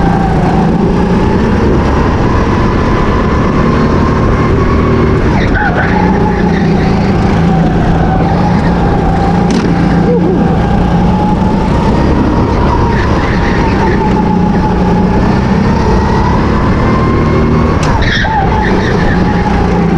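Go-kart engine running hard, heard onboard, its pitch rising and falling through the corners, with short dips about five seconds in and again near the end.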